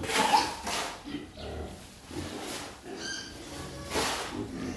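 Pigs grunting in a run of short bursts, with a brief high squeal about three seconds in.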